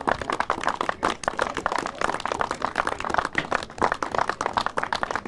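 Spectators applauding: a small group clapping, with the individual claps heard distinctly.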